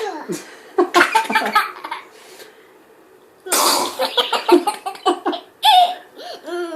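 A man's loud, exaggerated pretend sneezes, the biggest about three and a half seconds in, with a small child's laughing and squealing between and after them.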